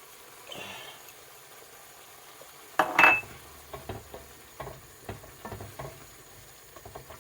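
A spoon clanks loudly against a metal cooking pot about three seconds in, then stirs the pot, knocking and scraping against its sides a few times a second.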